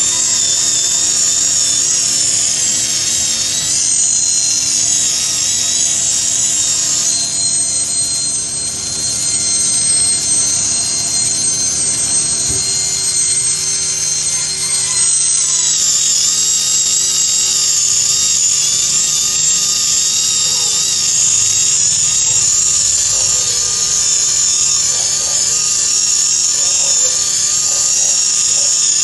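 High-speed rotary polishing handpiece whining steadily as it polishes a steel mold cavity, its pitch shifting a couple of times.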